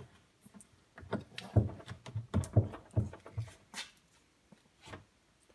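Fingers rubbing and scraping plastic burrs off a freshly drilled hole in the wall of a plastic Brute trash can: a run of short, irregular scratchy rubs, then a couple of light taps near the end.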